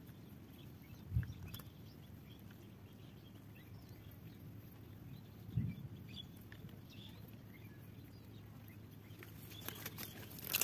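Close handling noise: two dull, low thumps about four seconds apart over a steady low rumble, with light crackling and rustling near the end as a caught climbing perch is handled against a wet wooden board.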